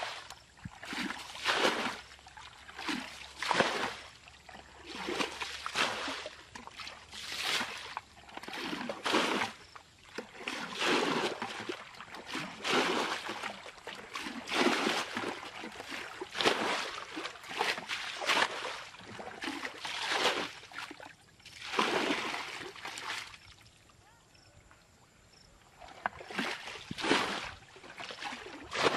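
Muddy water being bailed out of a ditch with a plastic bucket: a steady run of scoops and splashes as each bucketful is thrown out, about one every one and a half to two seconds. There is a short pause about three-quarters of the way through before the splashing resumes.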